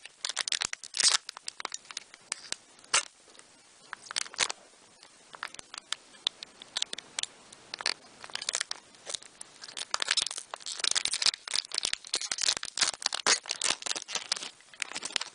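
Foil Pokémon TCG booster pack wrapper being torn and crinkled open by hand, roughly enough that the pack ends up mangled. Irregular crackles, sparse for a few seconds, then coming thick and fast over the last five seconds.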